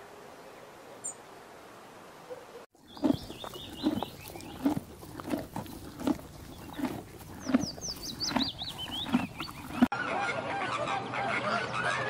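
Faint outdoor background with one brief high bird chirp. After a cut comes a regular series of soft thumps, about one every two-thirds of a second, with small birds chirping and whistling above them. About ten seconds in, a flock of flamingos starts honking and calling over one another in a dense, steady chorus.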